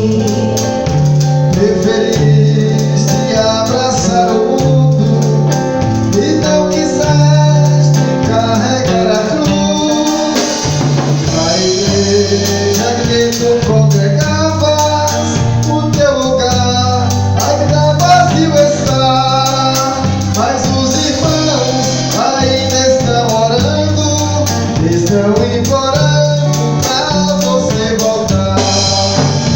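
Gospel song played by a church band: voices singing over guitar, a steady bass line and drums.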